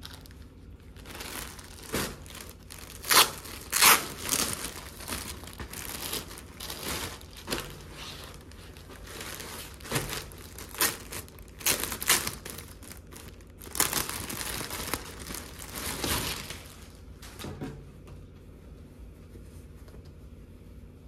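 Clear plastic poly bag crinkling and crackling as a folded sweatshirt set is handled and pulled out of it, in an uneven run of sharp crackles that dies down to a softer rustle near the end.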